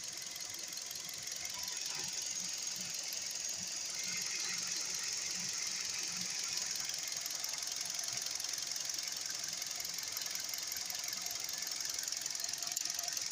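Car engine running steadily, heard with a hiss-like high ringing from a poor recording. The drive belt no longer whistles, now that it seats fully in the cleaned pulley grooves.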